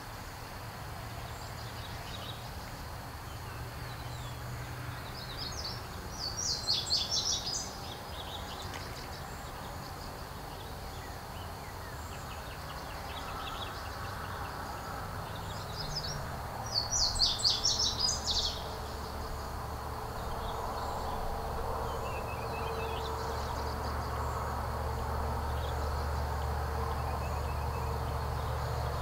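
A small bird singing two short bursts of rapid, high-pitched notes, about six seconds in and again about seventeen seconds in, over a steady low background rumble.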